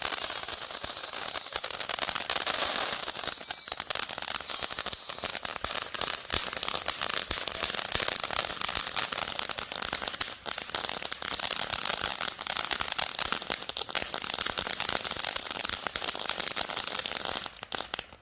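TNT Killer Bee ground fountain firework burning with a dense, steady crackle, broken by three short high squeals that fall in pitch in the first five seconds. The crackle cuts off suddenly near the end as the fountain burns out.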